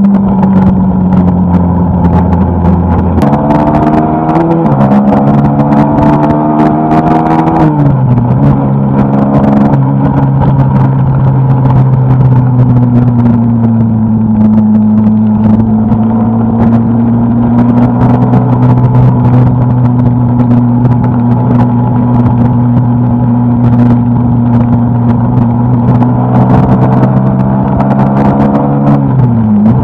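Suzuki Gixxer SF250's single-cylinder engine pulling hard at highway speed, rising in pitch for a few seconds and then dropping sharply at an upshift about eight seconds in. It then holds a nearly steady drone in top gear and dips once more near the end, over a steady rush of wind.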